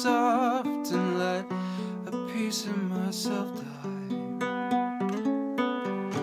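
Acoustic guitar playing a run of chords and single notes. A man's held sung note with vibrato ends about half a second in.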